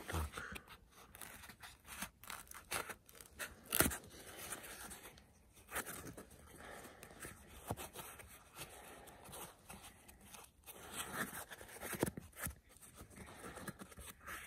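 Irregular rustling, scraping and crackling of pipe thermal insulation being handled and fitted around a plastic water pipe, with a sharper crack about four seconds in.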